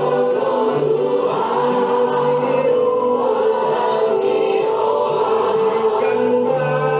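Background music: a choir singing a slow song, with long held notes.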